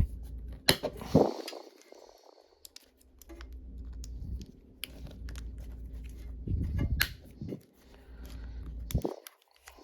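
Hand work on a small plastic coil bobbin with fine copper wire: scattered clicks, crackles and a few sharper snaps as the copper winding is pried and pulled out of the plastic.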